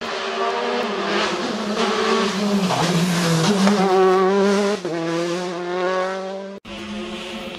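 Citroën DS3 R5 rally car's turbocharged 1.6-litre four-cylinder engine driven hard through a corner. The revs drop under braking about three seconds in, then climb again as it accelerates away through a quick gear change. The sound cuts off abruptly near the end.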